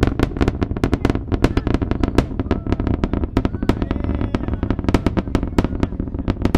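SpaceX Super Heavy booster's Raptor rocket engines during ascent: a deep, continuous rumble shot through with rapid, irregular sharp cracks, the rocket's crackle.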